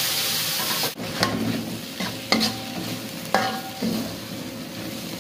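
Oil sizzling loudly in a hot wok, cutting off sharply about a second in. Then a metal spatula scrapes and clinks against the wok about once a second as fried spice paste is stirred.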